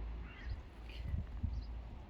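Short, high bird chirps repeating every half second or so over a low rumble, with two soft knocks about a second in.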